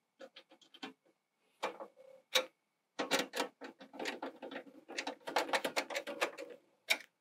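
Ratchet wrench clicking in short quick runs as the shutter's mounting bolts are tightened. A few scattered clicks come first, then a longer dense run from about three seconds in.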